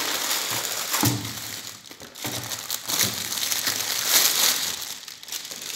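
A clear plastic bag and its packaging crinkling and rustling in the hands as a boxed corset is unpacked, in irregular scratchy surges.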